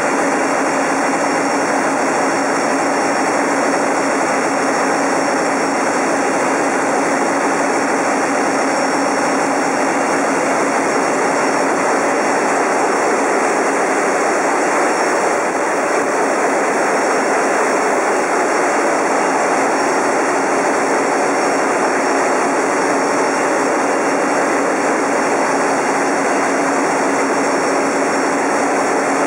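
Loud, steady engine-room noise of a running marine diesel engine and its ABB turbocharger: a dense, unchanging mechanical din with a thin steady high whine on top.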